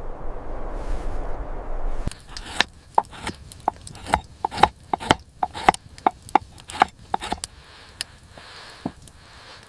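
A loud steady rushing noise that cuts off abruptly about two seconds in, followed by a run of short sharp knocks, about two or three a second, that thin out near the end.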